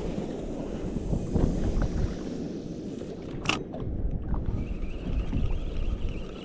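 Water sloshing against a boat's hull, with wind on the microphone and a sharp click about three and a half seconds in.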